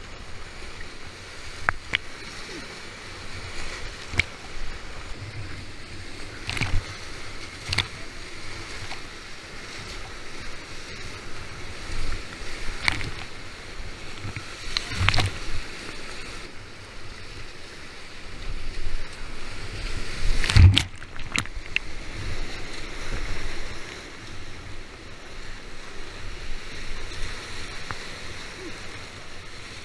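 Rushing grade III–IV high-volume whitewater around a kayak, heard from a camera on the boater, with frequent splashes and knocks as waves break over the boat and the paddle bites; one hit about two-thirds of the way through is the loudest.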